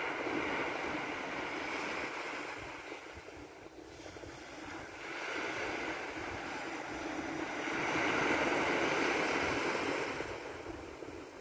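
Surf washing up a sandy beach, swelling and fading three times, loudest near the end.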